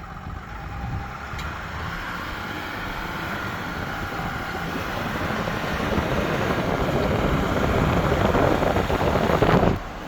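A 2023 GMC Sierra 3.0L pickup driving, its running noise rising steadily as it pulls, then falling away sharply near the end. A single faint click comes about a second and a half in.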